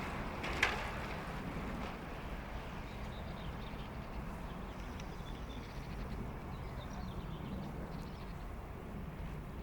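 Footsteps of a man walking with a small dog over a steady low background rumble, with one sharp click about half a second in and faint high ticks later on.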